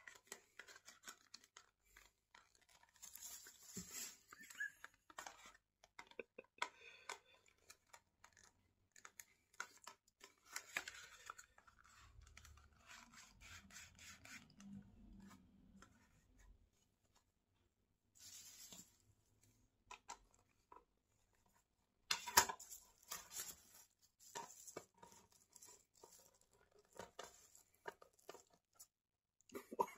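Close-up handling noises: irregular scratches, clicks and tearing of material in on-and-off spells, with a lull of a few seconds past the middle and a louder spell just after it.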